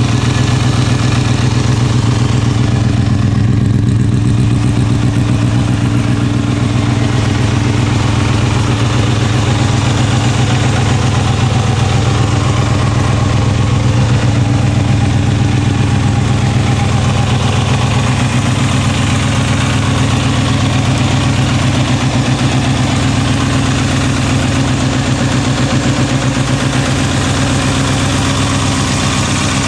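Kawasaki Balius 250 cc inline-four motorcycle engine idling steadily through an OVER aftermarket silencer.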